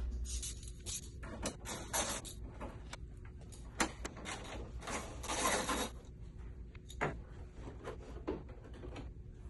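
Rustling and rubbing of vinyl decal sheets being handled and pressed onto a car hood, in short noisy bursts with a longer one in the middle, and a few sharp knocks.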